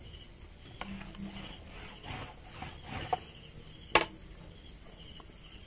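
Tailor's chalk rubbing over stretch knit fabric on a wooden table in a run of faint short strokes, with a single sharp knock about four seconds in.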